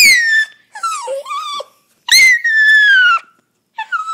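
Poodle screaming in a run of about four high-pitched whining cries, each sliding down in pitch, as it strains to get at a pet bird.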